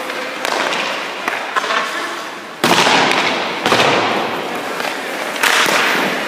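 Goaltender's skate blades scraping hard across the ice in pushes and stops, three loud hissing scrapes that begin suddenly about two and a half, four and five and a half seconds in, each fading over about a second.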